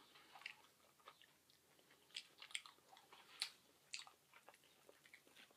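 Faint chewing of a buffalo chicken sub on soft bread, heard as scattered soft mouth clicks.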